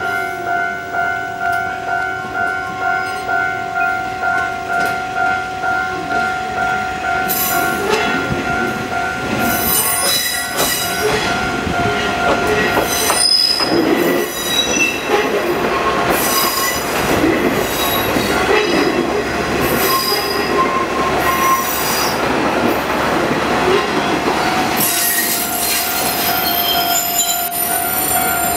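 Kanto Railway KiHa 350 (ex-JNR KiHa 35) two-car diesel railcar rolling slowly into the station. From about seven seconds in, its wheels rumble and knock over the rail joints and points under its diesel engines. High wheel-flange squeals set in near the end. A warning bell rings steadily and repeatedly throughout.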